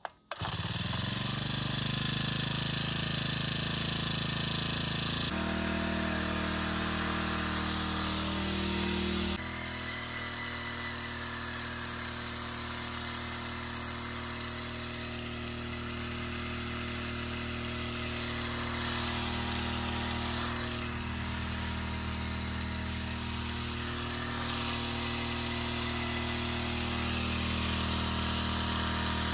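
Small four-stroke engine of a portable power sprayer starting and revving up within the first second, then running steadily and driving the pump, with a hiss of spray from the nozzle over it. The engine note shifts abruptly about five seconds in and again about nine seconds in.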